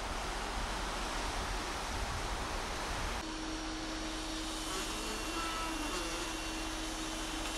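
Steady rushing of wind and the ship's churning wake at a cruise ship's stern. About three seconds in the sound changes abruptly and a steady hum joins the rushing.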